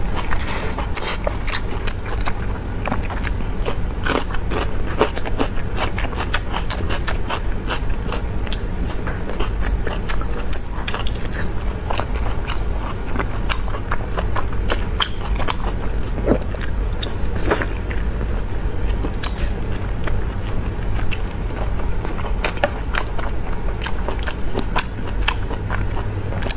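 Close-miked eating: biting and chewing fatty, sauce-covered meat, with many irregular wet mouth clicks over a steady low hum.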